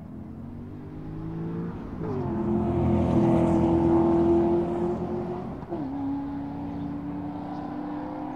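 Car engine running hard, its note jumping up in pitch about two seconds in and growing loud, then dropping abruptly a little before six seconds in and running on steadily at the lower pitch.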